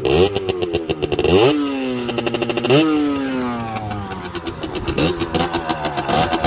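Sherco 50cc two-stroke supermoto engine blipped twice, the revs shooting up and sliding back down each time, then running steadily at low revs. Its silencer has had half of its rock-wool packing removed, so the exhaust is much louder.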